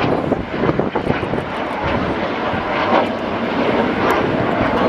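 Jet noise from the Red Arrows' BAE Hawk T1 trainers, their Rolls-Royce Adour turbofans giving a steady rushing roar as the display jets fly past.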